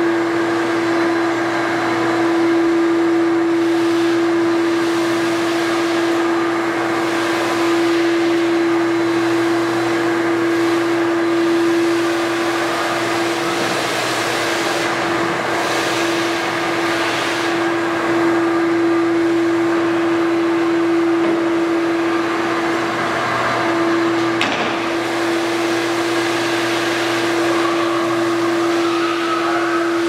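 ProTeam ProGuard 20 wet/dry vacuum running steadily, a single pitched motor hum over rushing air, as its front-mount squeegee sucks stripping water off a vinyl tile floor.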